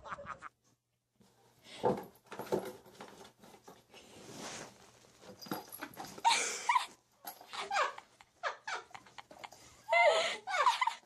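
A cat yowling twice in short, wavering calls, the second near the end, with scraping and knocking sounds in between.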